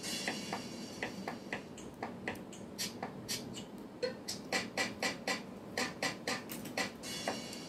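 Background music with a quick, clicking beat of about three to four ticks a second.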